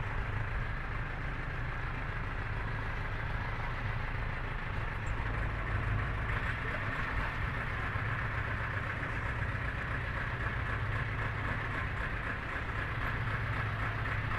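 Sailboat's engine running steadily at low revs, an even low drone.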